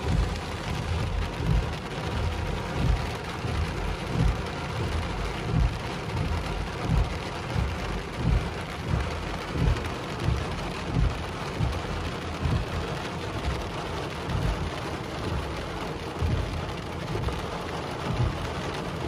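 Heavy rain falling on a car's roof and windshield, heard from inside the closed cabin: a steady hiss with many irregular low thuds of big drops striking.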